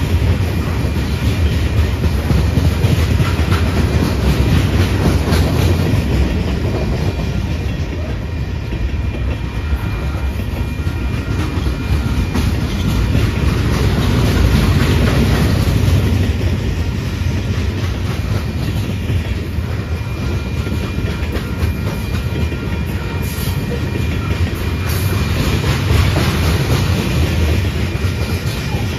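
Freight train cars rolling past close by: a loud, steady rumble of steel wheels on rail, with wheels clicking over the rail joints.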